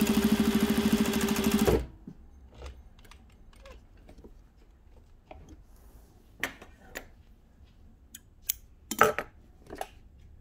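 Juki DDL-8700H industrial lockstitch sewing machine running at steady high speed through several layers of fleece, with a fast even stitching chatter, stopping abruptly just under two seconds in. Afterwards a few sharp clicks and soft rustles as the fabric is pulled out from under the foot and handled.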